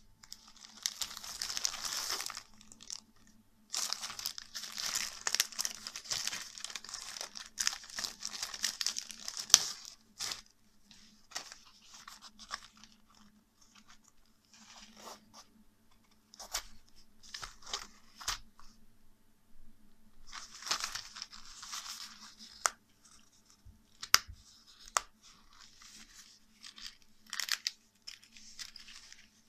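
Thin clear zip-lock plastic bag crinkling and rustling as it is opened and a leather-look screwdriver wallet is pulled out, in long bursts over the first ten seconds and again about twenty seconds in. Between and after them come softer rustles and sharp clicks as the wallet is handled and opened.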